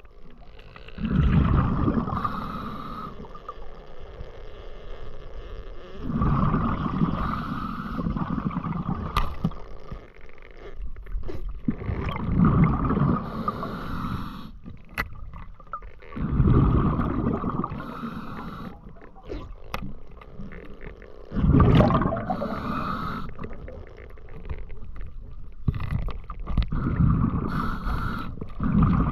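A diver breathing through a scuba regulator underwater: a hiss on each inhale, then the low bubbling rumble of the exhaled air, repeating about every five seconds.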